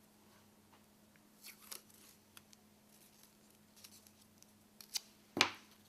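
Quiet handling of a roll of paper washi tape: faint rustles and small clicks as the tape is worked off the roll, then one sharp click near the end.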